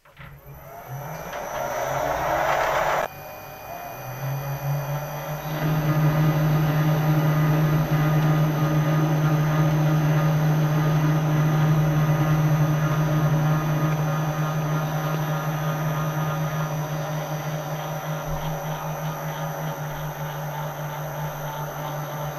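Small metal lathe started up and running with its four-jaw chuck spinning, taking a light spring pass on a cut thread. A rough, rising sound in the first three seconds cuts off suddenly, then a steady hum builds and holds.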